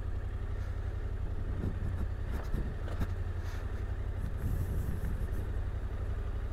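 Yamaha Ténéré 700's parallel-twin engine running steadily as the motorcycle rolls slowly along a dirt track, a steady low engine note throughout.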